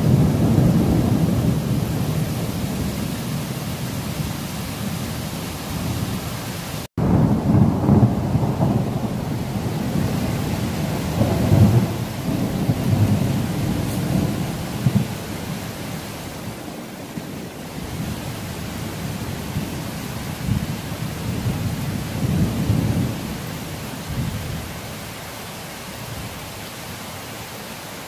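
Thunder rolling in long waves of low rumble after a lightning flash, swelling again several times and slowly dying away, over the steady hiss of rain. The sound cuts out for an instant about seven seconds in.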